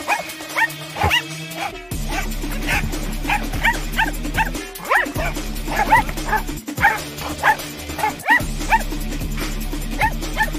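Dogs barking and yipping excitedly, many short sharp barks in quick succession, over background music.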